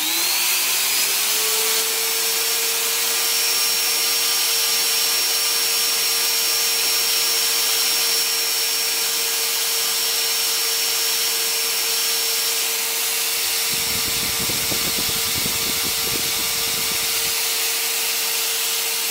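Makita grinder mounted on a lathe as a tool-post grinder, running with a steady whine while its stone grinds a steel file shank turning in the lathe chuck, over a constant grinding hiss. A lower, rough rumble joins for about three seconds around two-thirds of the way through.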